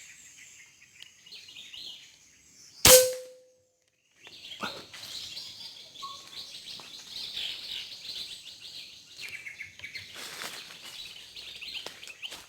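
A chorus of birds chirping and calling, broken about three seconds in by a single sharp crack from a pre-charged pneumatic air rifle, with a short ringing tone after it; the chirping carries on afterwards. The shot brings down a bird.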